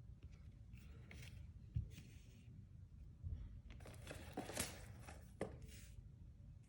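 Trading cards and their packaging being handled: faint rustling and sliding in short spells, loudest about four to five and a half seconds in, with a couple of soft knocks.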